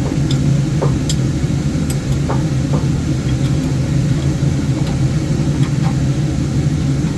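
Woodturning lathe running with a steady motor hum while a bowl is hollowed out, with a few faint ticks on top.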